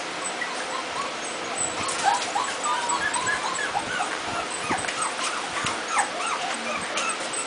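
A litter of month-old Pembroke Welsh corgi puppies whimpering and yipping, with many short, high squeaky calls overlapping one another.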